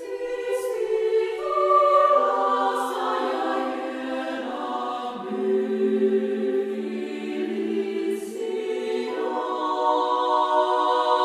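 Background music of sustained choral voices holding slow chords that shift every few seconds.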